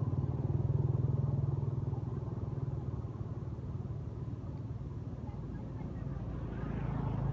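A motor engine droning steadily, loudest about a second in, easing off, then swelling again near the end.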